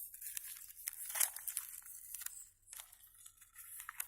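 A sheet of A4 paper being folded by hand: rustling and crinkling with quick creasing crackles, the loudest about a second in.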